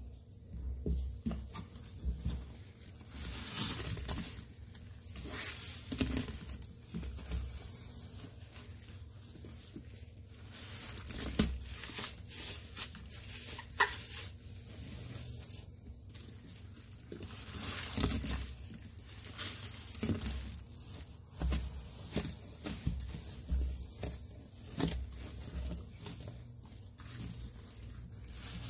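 Wet squelching and crackling of thick cleaning-product foam as rubber-gloved hands squeeze and knead soaked sponges in a sink of Fabuloso, Comet and Ariel paste, in irregular surges with small pops of bursting bubbles.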